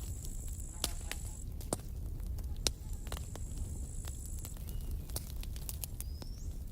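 Wood campfire crackling, with scattered sharp pops over a steady low rumble. Twice a thin high tone lasts about a second and a half.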